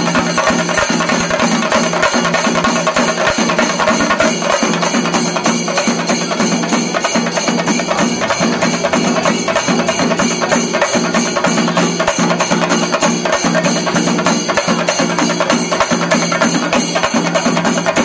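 Shinkarimelam: a troupe of chenda drums beaten with sticks, playing a dense, fast, unbroken run of strokes.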